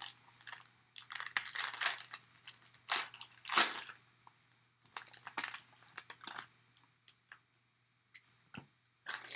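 Foil wrapper of a trading-card pack crinkling and tearing as it is opened by hand, in irregular crackly bursts that thin out after about six seconds.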